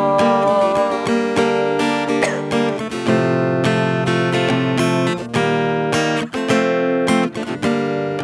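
GWC 235 NA acoustic guitar strumming chords in an even rhythm.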